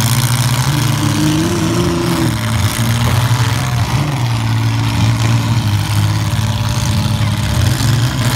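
Demolition derby compact cars' engines running loud and revving, their pitch rising and falling as the cars drive and push against each other.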